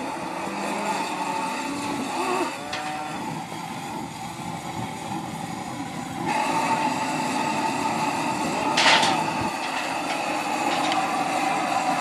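Calves and cattle bawling in long drawn-out calls, one after another, around a calf branding. A brief sharp noise about nine seconds in is the loudest moment.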